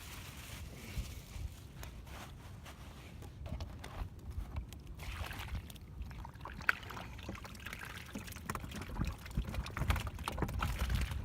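Water trickling and pouring out of a bucket through a plastic bag, with scattered clicks, plastic handling noise and a low wind rumble on the microphone.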